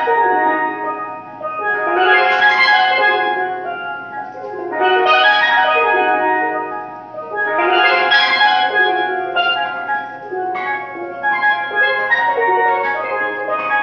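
Steelpan played with sticks: full chords swell and fade about every two and a half seconds, then from about ten seconds in the playing turns to quicker, separately struck notes.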